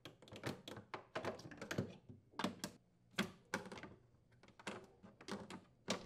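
Irregular light clicks and taps of a Phillips screwdriver and metal rack slide rails being unscrewed and pulled off the inside wall of a wine cellar cabinet.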